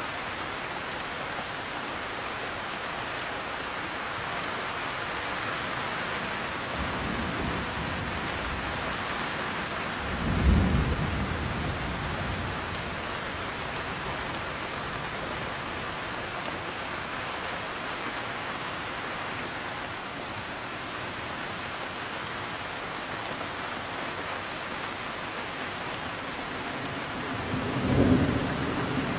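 Steady heavy rain with thunder: a faint low rumble about seven seconds in, then two louder rumbles, one about ten seconds in and one near the end.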